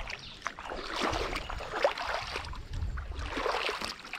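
Footsteps wading through a shallow, muddy stream, shoes splashing and sloshing through the water with each stride.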